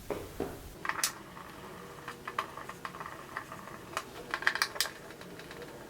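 Irregular light clicks and ticks of a screwdriver working the plastic screws out of a motorcycle's front fairing, with a quick run of clicks a little after the middle.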